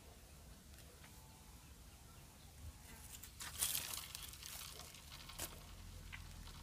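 A brief crackling splash about three and a half seconds in as something breaks the pond surface and sets ripples spreading, with one short click about two seconds later.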